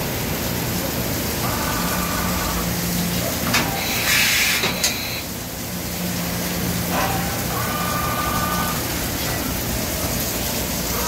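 2013 Doosan Puma MX1600ST CNC mill-turn lathe running a program, with the steady hiss of coolant spray. A steady whine comes in twice for about two seconds each, and there is a louder burst of hissing with two sharp clicks about four seconds in.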